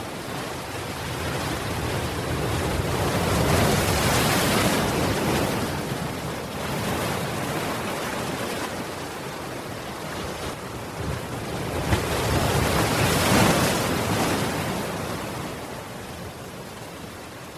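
Ocean surf: waves breaking and washing in with a continuous rushing noise. It swells twice, loudest about four seconds in and again around thirteen seconds, then eases off near the end.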